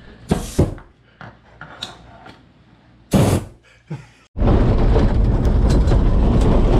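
A few short hissing bursts, the longest about three seconds in. Then, from about four seconds in, the loud steady rumble of a pickup truck driving on a dirt road, with road and wind noise heard from the truck bed.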